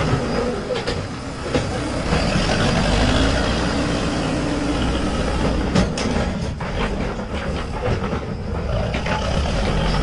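Manitou Terex backhoe loader's diesel engine running steadily as the machine works its front loader bucket at a heap of soil and stones, with a few sharp knocks about six seconds in.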